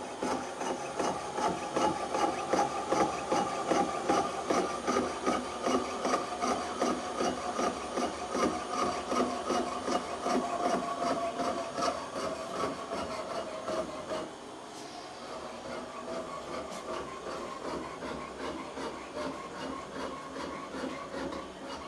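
Rhythmic rasping strokes of hand-working silver at a jeweller's bench pin, several strokes a second, with a ringing tone from the metal. The strokes become quieter and sparser about two-thirds of the way through.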